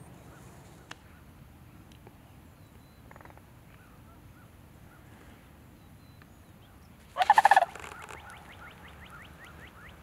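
A sandhill crane gives one loud, rattling bugle call a little over half a second long, about seven seconds in. Faint small-bird chirps sound around it, with a quick run of rising chirps near the end.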